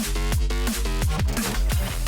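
Electronic dance music with a fast beat: deep kick drums that drop in pitch, sharp percussion hits and stacked synth chords.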